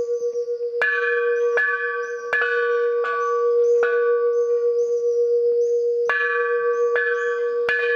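Large metal Thai temple bells hung in a frame, struck by hand with a stick about seven times, each strike sharp and followed by a long steady ring with higher overtones. Striking pauses from about four to six seconds in while the ring carries on.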